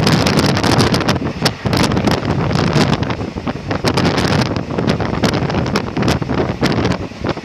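Wind buffeting the microphone from a moving passenger train, over the train's running rumble, with irregular sharp crackles and gusts throughout.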